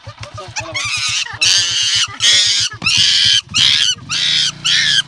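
An animal giving a quick series of shrill, rasping squeals, about seven in a row, each under half a second long.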